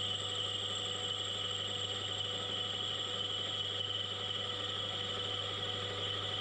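Metal lathe running steadily while the tool turns down the outside of a brass bush. A low hum sits under a constant high-pitched whine.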